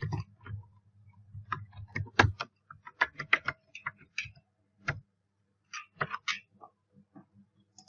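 Computer keyboard being typed on: irregular key clicks for several seconds, thinning out near the end, over a faint steady low electrical hum.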